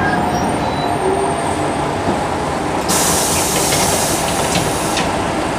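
Running noise inside a city bus, steady engine and road rumble, with a loud hiss of compressed air about three seconds in that lasts some two seconds.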